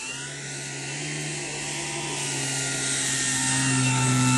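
Model airplane's motor and propeller buzzing at a steady pitch, growing steadily louder as the plane approaches.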